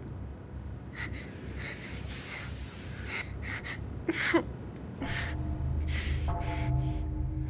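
A woman gasping and breathing hard in fear, a string of short sharp breaths with a brief whimper about four seconds in. A low droning film score with held tones comes in beneath from about five seconds.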